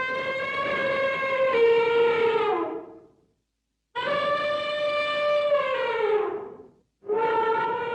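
Elephant trumpeting: two long brassy trumpet calls of about three seconds each, every one sliding down in pitch as it ends, separated by short pauses. A third call begins near the end.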